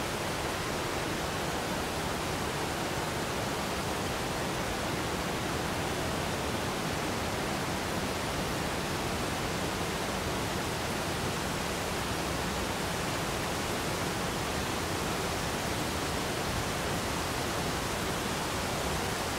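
Tall waterfall falling with a steady, even rush of water.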